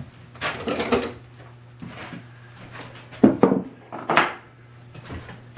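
Small metal hardware clinking and knocking against a wooden machinist's tool chest during reassembly: a rattle of clinks near the start, then two sharp knocks about a second apart, the first the loudest, over a steady low hum.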